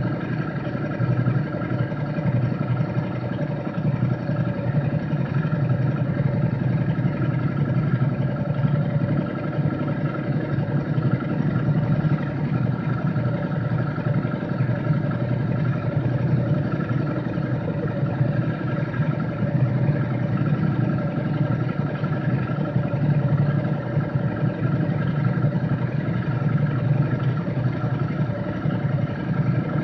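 Off-road motorcycle engine running at a steady speed, its pitch holding level with no clear revving.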